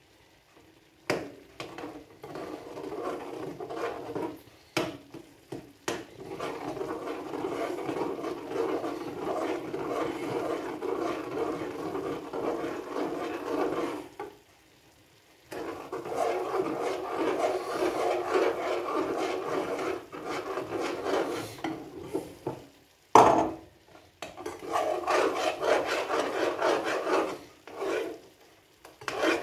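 A utensil keeps scraping and rasping as it stirs a stock cube in to dissolve it. The scraping pauses for about a second midway, and a sharp knock comes a little later.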